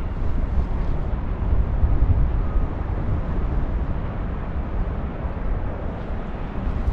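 Wind buffeting the microphone: a steady, uneven low rumble with no distinct events.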